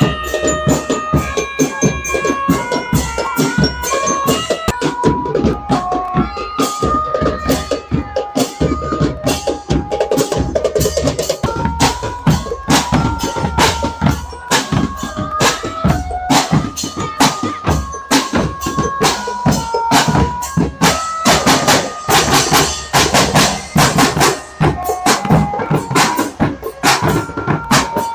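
A marching drum band playing: bass and snare drums beat a steady, fast rhythm under a melody of short, clear notes stepping up and down.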